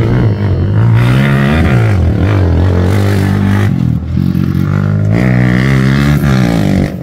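Motorcycle engine of an offroad racing tricycle running loud under throttle, its pitch repeatedly dropping and climbing as it is revved, with a dip about four seconds in and a climb just after.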